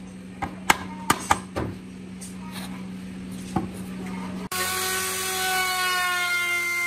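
Workshop sounds: a few sharp knocks and clicks over a low steady hum, then a sudden change about four and a half seconds in to a power tool working wood, a steady high whine with a rasping hiss.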